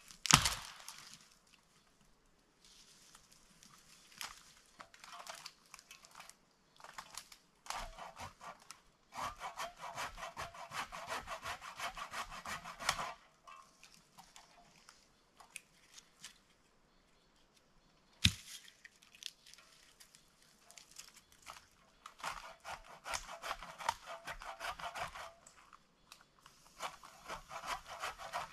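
Hand saw cutting through dry dead branches of a fallen conifer, in several bursts of quick back-and-forth strokes. A sharp knock comes just after the start and another about two-thirds of the way through.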